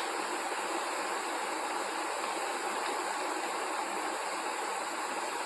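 A steady, even rushing noise that holds level throughout, with no distinct crunches or knocks standing out.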